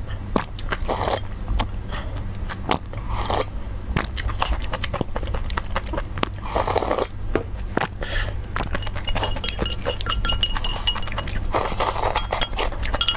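Close-miked eating: soup and noodles slurped from the bowl's rim in a few long sips, with wet mouth clicks and chewing between them, and chopsticks clinking against the porcelain bowl. A steady low hum runs underneath.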